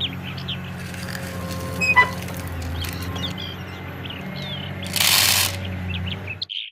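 Small birds chirping over a steady low hum, with a short hiss about five seconds in and a brief click about two seconds in.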